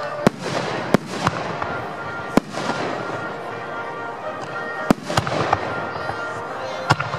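Aerial fireworks shells bursting overhead: about six sharp bangs at irregular intervals, a couple of them trailed by a fading hiss.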